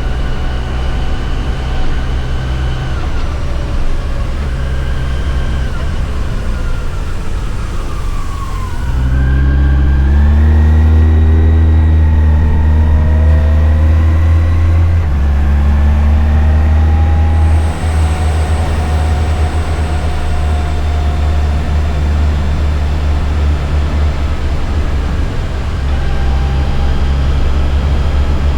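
Yamaha FJR1300 inline-four engine under way at a steady cruise. About nine seconds in it revs up louder with a rising pitch and pulls hard, steps in pitch around fifteen seconds as through a gear change, then eases back to a quieter steady run a few seconds later.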